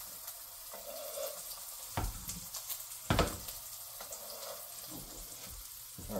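Steak sizzling in butter in a tilted frying pan while being basted, a steady hiss, with two knocks of the basting spoon against the pan about two and three seconds in.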